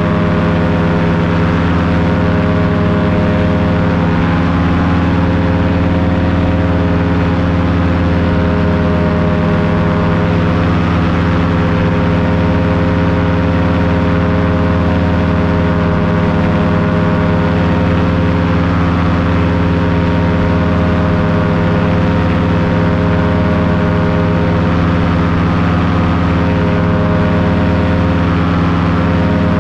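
Paramotor engine running steadily at constant throttle: one unchanging drone with no rise or fall in pitch.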